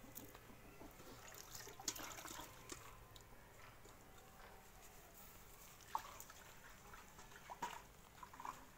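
A cow being hand-milked, heard faintly: irregular squirts and drips of milk into a pail, with scattered light clicks, the sharpest about two and six seconds in.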